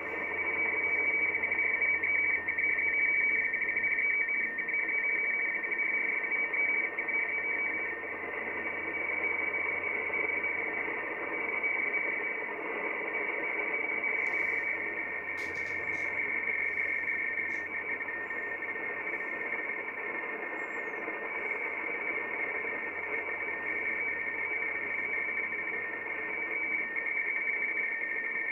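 Shortwave radioteletype (RTTY) weather broadcast received on an Icom IC-7300 in USB: a steady two-tone data signal, the two tones high and close in pitch, over radio static hiss. The station is sending its RYRY test pattern and CQ call with its list of frequencies.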